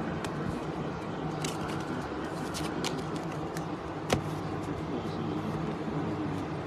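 Trading cards being handled, with a few light clicks and one sharper snap about four seconds in, over a steady low hum.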